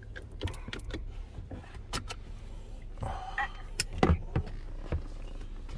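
Low steady hum inside a parked car with its power on, overlaid by scattered clicks and knocks of things being handled in the cabin, with a brief rustling patch about three seconds in.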